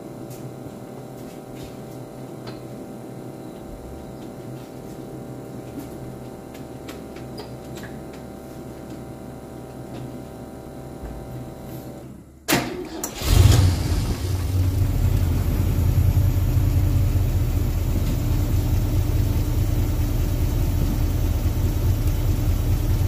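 A faint steady hum, then, after a brief break about 12 seconds in, the Holden WB's engine starts and settles into a steady idle with a strong low rumble, run to push coolant through a newly fitted heater core and check for leaks.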